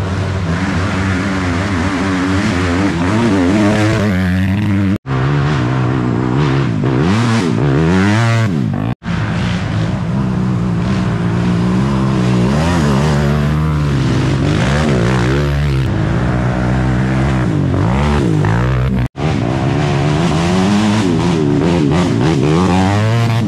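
Several mini quad ATV engines running and revving together, their pitches rising and falling and crossing over one another as the quads race. The sound drops out abruptly and briefly three times.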